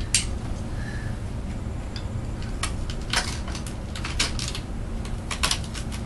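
Irregular light clicks and clinks of small hard objects being handled at an office desk, several in quick succession near the end, over a steady low room hum.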